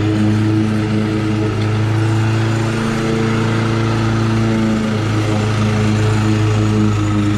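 Toro Commercial 21-inch walk-behind mower's engine running steadily at a constant speed.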